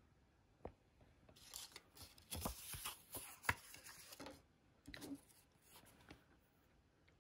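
A folded paper card and a ribbed paper liner being handled, rustling and crinkling for about three seconds, with a shorter rustle about five seconds in and a light tap before it all starts.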